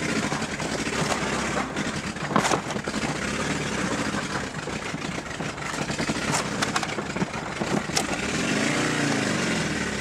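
Peugeot 205's XUD diesel engine heard from inside the cabin as the car drives, its revs rising and then falling again near the end. A few sharp clicks sound over the engine.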